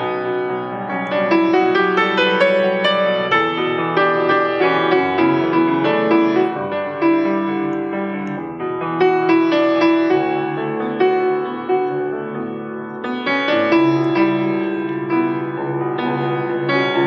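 Piano playing an instrumental passage of chords and melody, with no singing.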